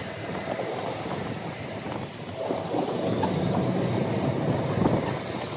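Steady aircraft noise on an airport apron, a constant engine hum with a faint steady whine, growing louder about two and a half seconds in.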